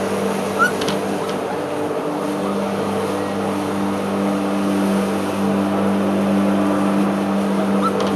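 Lawn mower engine running steadily with an even hum. A brief high squeak about half a second in.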